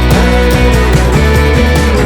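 Loud background rock music with distorted guitar, a heavy bass line and a steady beat.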